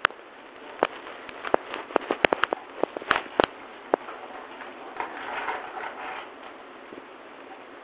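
Irregular sharp clicks and taps, a dozen or so in the first four seconds, then a soft rustle about five seconds in.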